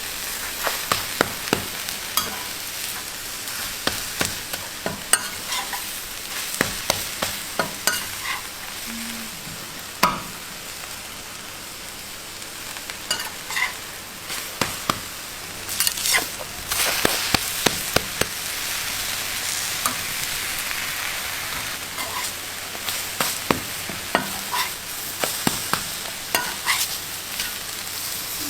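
Food sizzling as it fries on a hot cooking surface, with frequent short clicks and scrapes of a utensil stirring and turning it. The sizzle swells for a stretch in the middle.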